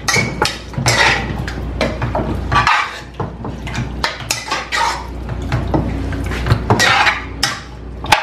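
A metal spoon clinking and scraping against a large metal pot as raw chicken pieces are mixed with seasoning, in quick irregular strokes.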